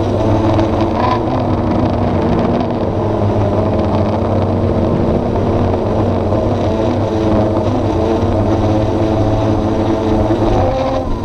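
Quadcopter drone's electric motors and propellers whining, heard loud and close from the camera mounted on it, the pitch wavering as it hovers and shifting near the end as a hand reaches up to catch it.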